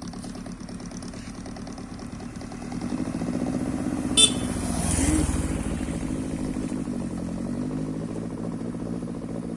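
Drag-race engine in a scrap car running, with the revs rising from about three seconds in, peaking around five seconds and settling back down. A brief sharp click comes just after four seconds.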